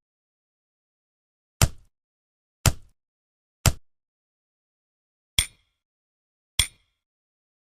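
Six short, sharp hits against dead silence: three about a second apart, a pause, then three more, the later ones with a slight high ring.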